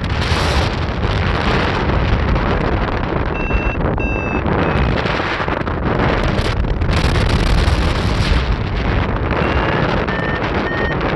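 Strong wind buffeting the microphone in a loud, steady rush. A few short, high electronic beeps sound through it, the last run stepping up in pitch near the end.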